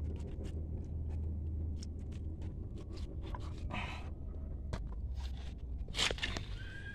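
Hands handling slippery cut pieces of eel on a wet wooden board: scattered small clicks and scrapes over a low steady rumble, with a sharper click about six seconds in.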